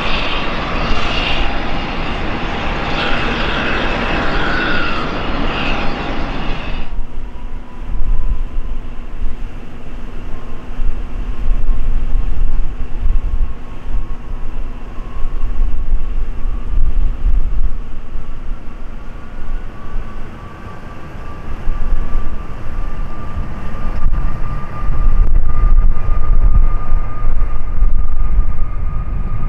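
Airbus A321neo's Pratt & Whitney geared turbofans spooling up for takeoff: a steady low rumble under a whine that slowly rises in pitch, growing louder near the end as the jet rolls down the runway. Before that, about seven seconds of steady jet ramp noise at a gate, a hiss with a faint whine, cut off abruptly.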